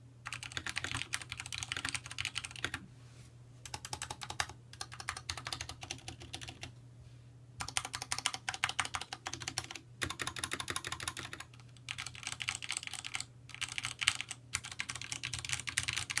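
Typing on a Vortex POK3R 60% mechanical keyboard with Cherry MX Brown switches: fast runs of keystroke clicks broken by several short pauses. A faint steady hum sits underneath.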